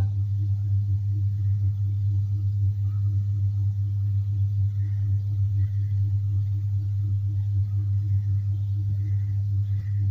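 A steady low hum with no other clear event.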